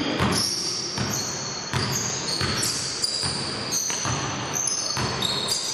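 Basketball game play on an indoor court: the ball bouncing at irregular intervals, with many short, high squeaks of shoes on the floor, in an echoing hall.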